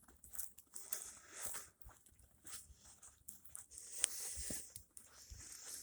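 Footsteps crunching on frozen snow, an irregular series of crunches with a sharp click about four seconds in.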